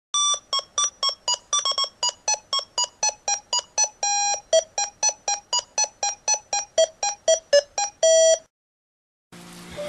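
Intro jingle played on electronic square-wave beeps: a fast run of short notes, about three to four a second and changing in pitch, with a few longer held notes. The notes stop about eight and a half seconds in, and a steady hiss with a low hum starts near the end.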